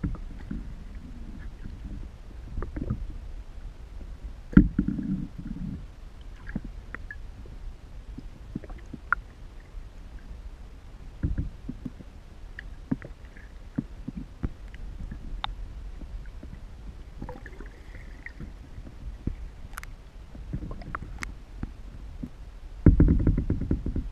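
Muffled underwater sound of lake water moving around a submerged camera: a low rumble with scattered clicks and knocks, one sharp thump about four and a half seconds in, and a louder stretch of rumbling near the end.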